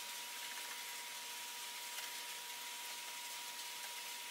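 Steady background hiss with a faint, thin high-pitched whine held throughout, and no distinct handling or machine sounds.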